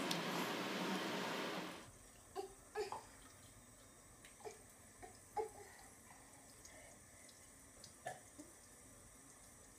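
A steady hiss that cuts off abruptly under two seconds in. Then a faucet runs a thin stream of water into a bathroom sink, faint, with a few short light knocks.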